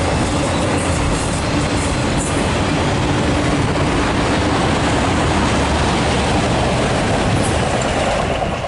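Loaded autorack freight cars rolling past on the rails: a steady, loud rumble of wheels on track. The sound drops a little near the end as the last cars go by.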